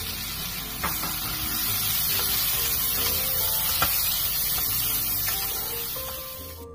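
Sliced onions sizzling in hot oil, a steady hiss, with a metal slotted spatula clicking and scraping against the pot as they are stirred. The hiss dies down near the end.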